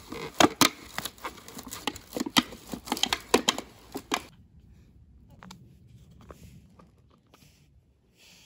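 Thin black plastic seedling tray crackling and popping as a gloved hand presses down into its cells: a quick run of sharp crinkles for about four seconds, then only faint scattered clicks.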